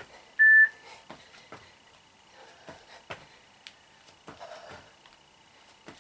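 One short electronic beep from an interval workout timer about half a second in, signalling the start of a 45-second exercise interval. Faint, irregular thuds of sneakers stepping and lunging on a foam floor mat follow.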